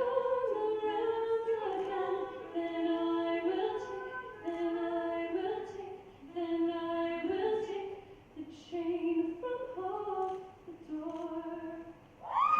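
Voices singing a cappella, with no instruments, led by a female voice in slow phrases of held notes.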